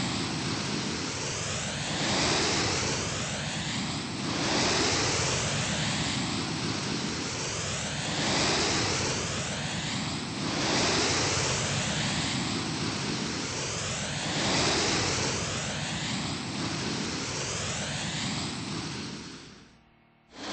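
Vintage GEC Mistralaire ceiling fan running: a steady rush of moving air that swells and eases every two seconds or so, then cuts out near the end.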